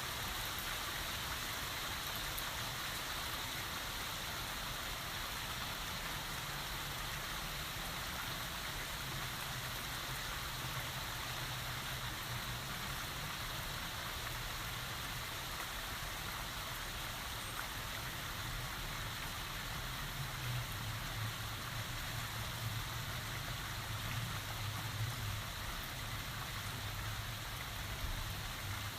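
Steady rain falling on surfaces, an even hiss of drops. A low rumble joins in partway through and grows louder in the second half.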